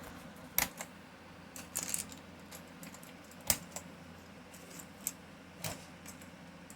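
Keys of a Livetech computer keyboard being pressed, a few separate clicks spread out at irregular intervals, with a low steady hum behind them.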